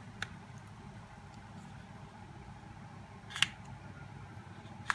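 Small handling clicks from an iPhone 6s Plus and a plastic pry tool being worked by hand: a light click near the start, a sharper, louder one past the middle, and another at the end, over a steady low hum.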